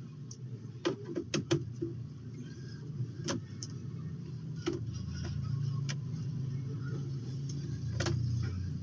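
Scattered sharp clicks and taps of a screwdriver and a plastic laptop cover being worked on as the hard-drive bay lid is taken off, over a steady low hum.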